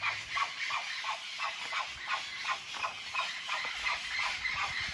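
A flock of parrots calling, many short calls overlapping at several a second.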